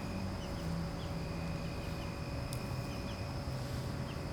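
Steady outdoor background noise with a faint constant hum and a few faint, short chirps.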